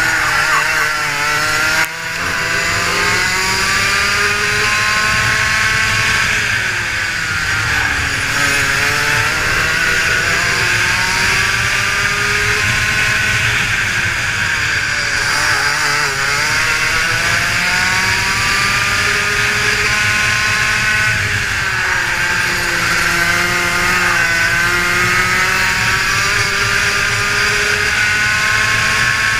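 Rotax Max 125 cc two-stroke single-cylinder kart engine, heard from on board, driven hard around a lap: the revs climb steadily down each straight, then drop sharply as the kart lifts off for a corner and pick up again on the exit, several times over.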